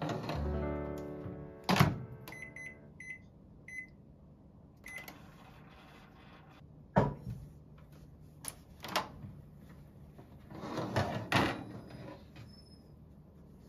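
Combination microwave oven: a door clunk about two seconds in, then a few short high keypad beeps as it is set. Later come clicks and a clatter as the door is opened and the cake tin is handled, all over soft background music.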